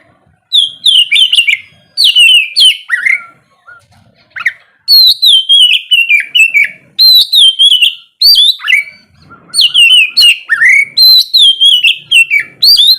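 Oriental magpie-robin (kacer) singing loud, rapid whistled phrases, each note slurring downward, repeated almost without break with one short pause about four seconds in.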